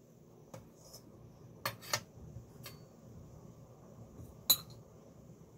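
Metal ladle clinking against a stainless-steel pot while stirring soup, then against a small ceramic bowl: about five sharp clinks, the loudest near the end.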